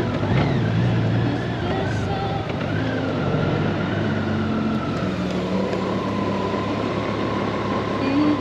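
Honda GoldWing motorcycle on the move: steady engine drone and wind rush, with music from the bike's audio system playing over it. The low drone shifts about halfway through.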